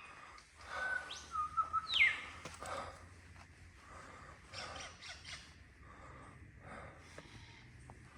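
Lyrebird singing: a quick run of varied whistles, sharp clicks and calls, loudest in the first three seconds, with a fast downward-swooping whistle about two seconds in, then softer scattered calls.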